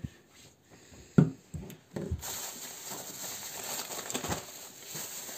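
Groceries being handled on a table: a plastic sauce bottle set down with a sharp knock about a second in, a couple of lighter knocks, then steady rustling and crinkling of plastic grocery bags.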